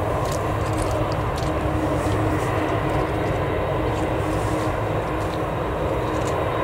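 Boeing 747-400's four jet engines running at taxi power as the jumbo turns on the runway: a steady, loud rumble with a held hum underneath.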